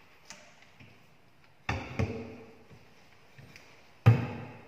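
Cabinet doors being pushed shut against the carcass: sharp wooden knocks, each with a short hollow ring. A small click comes first, then two knocks close together about a second and a half in, and the loudest knock near the end.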